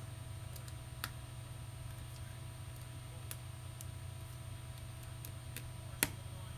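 Small Phillips screwdriver clicking and tapping on the phone's screws and plastic housing as the screws are checked for tightness. The clicks are scattered and faint, with two sharper clicks near the end, over a steady low hum.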